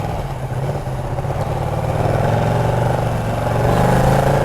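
Ducati Panigale 959's L-twin engine running at low revs, growing louder from about halfway through to near the end.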